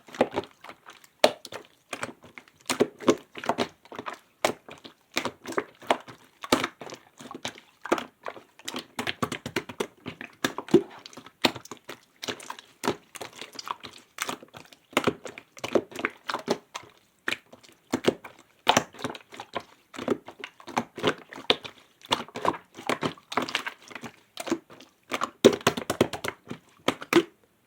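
Clear slime with glittery sequins being squished and worked by hand, giving a dense, irregular run of sticky clicks and crackles.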